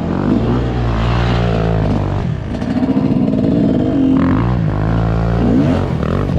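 Dirt bike engines revving hard, the pitch climbing and dropping as the throttle is worked, heard from on board the rider's own bike.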